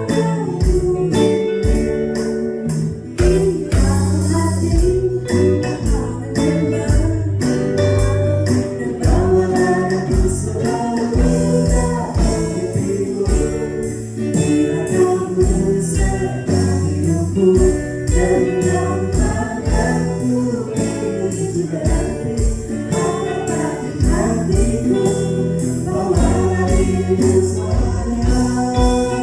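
Band playing an Indonesian pop song with singing, over electric drums keeping a steady beat, bass, and electric and acoustic guitars.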